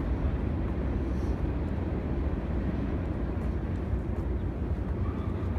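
A long train rolling past, a steady low rumble with no breaks.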